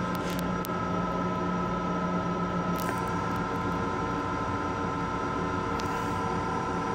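Steady running drone inside the restroom of a Long Island Rail Road M7 electric railcar, with several steady whining tones from the car's equipment. A low hum drops out about three seconds in, and a few light clicks and rattles sound over it.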